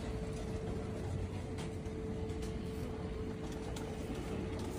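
Steady low mechanical hum with a constant tone, with a few faint clicks.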